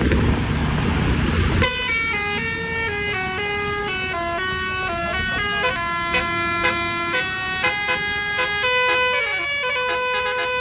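Basuri telolet horn, a multi-tone air horn, playing a quick tune of stepping notes. A loud rushing noise comes before it for about the first second and a half.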